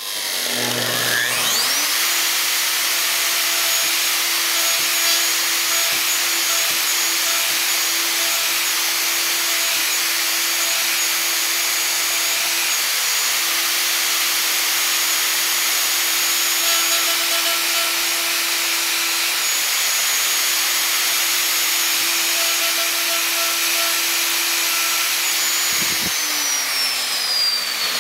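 Festool plunge router with a 3/8-inch spiral fluted bit spinning up about half a second in, then running steadily while it plunges and routes a mortise in mahogany, with its hooked-up dust extractor drawing off the chips. The router is switched off near the end and winds down.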